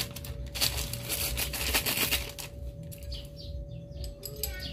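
Clear plastic bag of small parts crinkling and rustling as it is handled, busiest in the first half, then quieter with only light rustles and a few faint chirps.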